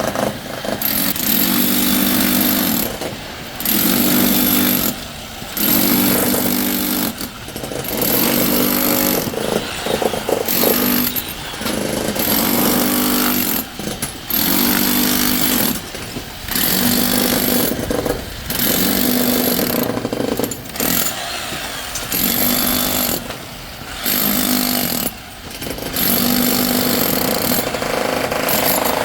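A jackhammer running in repeated runs of one to two seconds with short pauses between them, about a dozen times.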